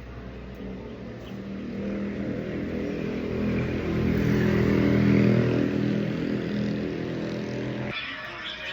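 A motor runs with a steady hum, growing louder toward the middle, then cuts off abruptly near the end.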